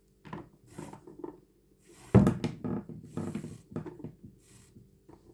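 Handling noises of polyester cord being pulled through crochet loops with a hook: short rustling scrapes, with one sharp knock about two seconds in.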